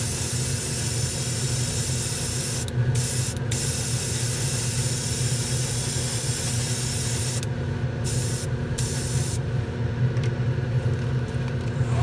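Airbrush spraying thinned black enamel paint: a steady hiss that drops out briefly several times as the spray is stopped and restarted, over a steady low hum.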